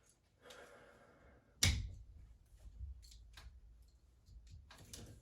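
A blade scraping as it scores water-damaged ceiling drywall, then a sharp knock with a low thud about a second and a half in, followed by several light clicks and taps.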